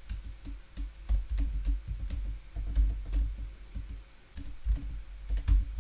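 Typing on a computer keyboard: irregular runs of keystroke clicks, with a short lull a little past the middle.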